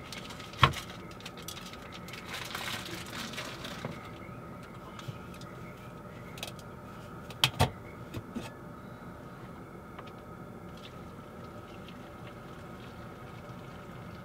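Food prep sounds: a ramen seasoning packet crinkling and a noodle block being handled in a bowl, with a sharp knock near the start. About halfway through a Jetboil stove's metal cooking cup is lifted off its burner with two quick clinks.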